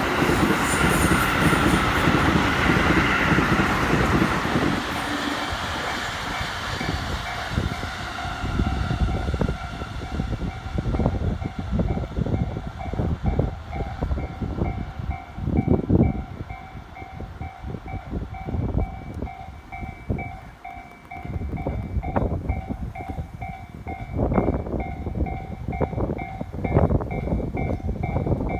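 Japanese level-crossing warning bell ringing in rapid, evenly repeated dings while an electric commuter train passes. The train's noise is loudest at first and fades over several seconds, then a run of sharp wheel clacks over the rail joints sounds under the bell.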